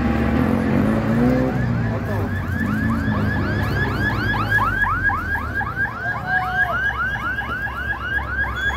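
Safety car's siren sounding a fast yelp, repeated pitch sweeps at about four a second, starting about a second and a half in, over the low sound of the car's engine.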